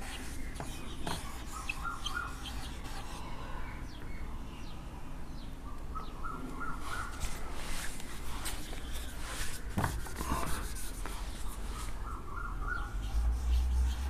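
Dry-erase marker squeaking and scratching on a whiteboard as letters are written, in a few short squeaks with pauses between.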